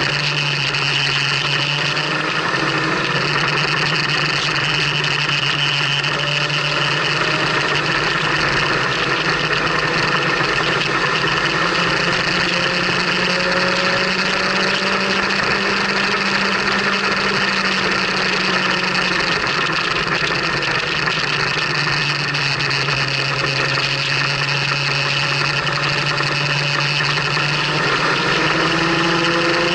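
Motorcycle engine running steadily at cruising speed under wind and road noise, its pitch drifting gently up and down through the curves and climbing near the end as it accelerates.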